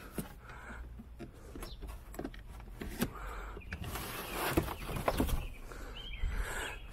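Scattered light knocks and rustling from handling, with a cluster of sharper knocks about four and a half to five seconds in.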